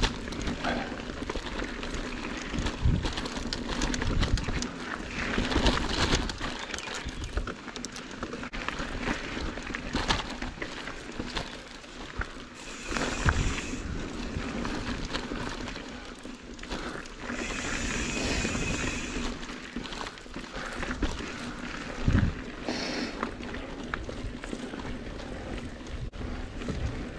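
Mountain bike rolling down a dirt singletrack trail: tyres running over dirt and roots, with frequent knocks and rattles from the bike over bumps.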